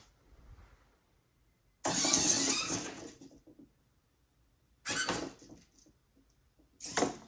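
Hobby servo motors in the joints of a 3D-printed robot arm whirring in three bursts as the arm moves. The first, about two seconds in, lasts about a second and is the loudest; two shorter bursts follow about five and seven seconds in.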